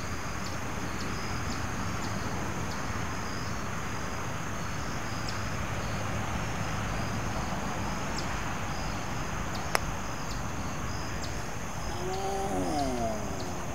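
Insects chirping steadily in a high pitch over a low outdoor rumble. About ten seconds in comes a single sharp click of a putter striking a golf ball, and near the end a brief wordless voice slides down in pitch.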